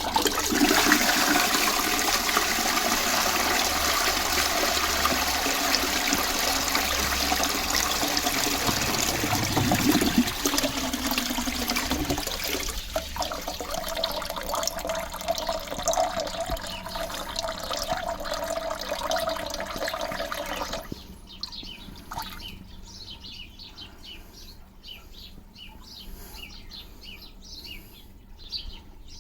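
A 1992 Balterley Shell Satsuma close-coupled toilet flushing: a loud rush of water through the pan, then a steadier hiss with a whine as the cistern refills, which cuts off abruptly about two-thirds of the way through and leaves a faint trickle.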